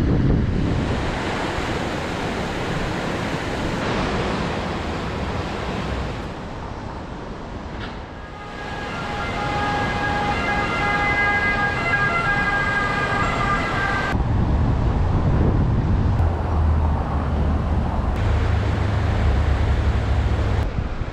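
The flood-swollen Adige river rushes past as a steady noise, with wind buffeting the microphone, heaviest in the last third. About eight seconds in, an emergency vehicle's siren sounds for about five seconds and then cuts off.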